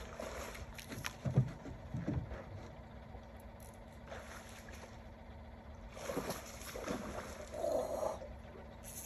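Water lapping and sloshing against the hull of a small fishing boat, with two dull thumps about a second and a half and two seconds in.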